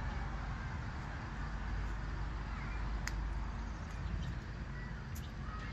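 Steady low outdoor background rumble, with a few faint high chirps and a sharp click about three seconds in.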